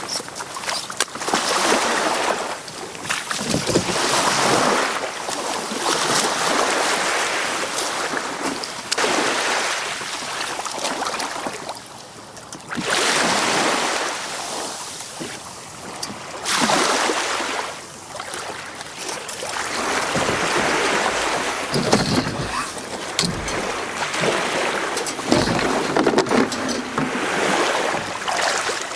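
Small waves washing in and out at the water's edge, rising and falling every few seconds, with wind buffeting the microphone at times.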